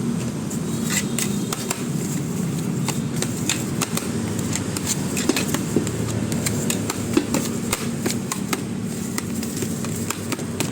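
Irregular sharp taps and clacks, several a second at times, over a steady low background hum.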